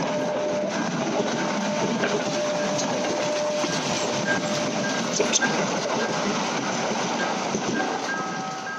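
Diesel-hauled passenger train passing close by: the steady rolling noise of its carriages on the rails, with scattered wheel clicks.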